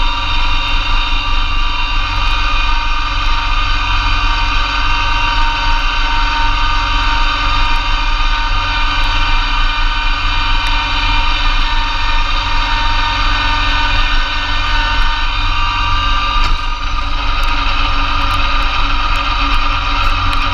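Massey Ferguson GC2300 compact tractor's diesel engine running steadily at working speed, driving a Blizzard B48 PTO snowblower through heavy wet snow. The tone shifts slightly about sixteen seconds in.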